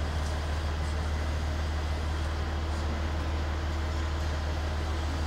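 Steady low mechanical drone that holds at an even level throughout.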